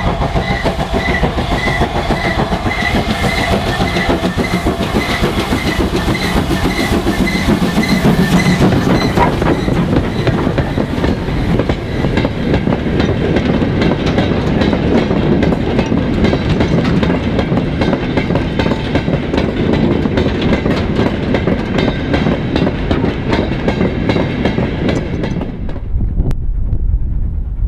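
Steam-hauled goods train passing: GWR 2-8-0 No. 3803 and its loose-coupled mineral wagons, wheels clattering over the rail joints with a steady rumble. A regular high squeak or tick comes about two to three times a second in the first few seconds.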